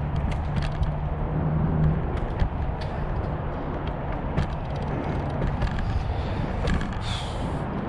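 City street ambience: a steady rumble of traffic with scattered light clicks and a short hiss near the end.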